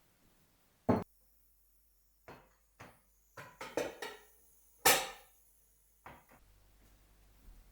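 A series of sharp knocks and clatters at irregular intervals, the loudest about a second in and about five seconds in, with a quick cluster of smaller ones in between.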